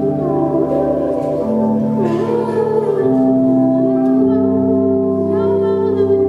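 Live electronic music: sustained, organ-like synthesizer drones and chords, with the bass note changing every second or two under a wavering mid-range line.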